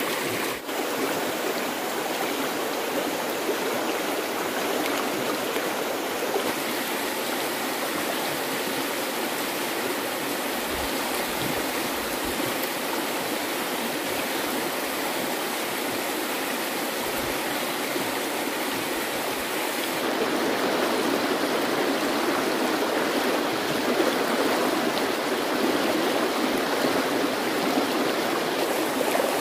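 Steady rush of running water, like a stream, with a slight rise in level about two-thirds of the way through.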